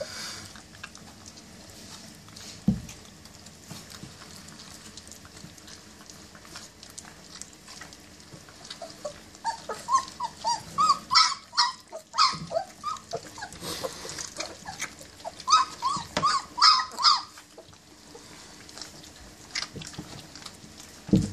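German shepherd puppies whining and yelping in two runs of short, high, rapidly repeated cries in the middle, while they crowd a steel feeding pan of kibble. Before that, only faint small clicks and one thump a few seconds in.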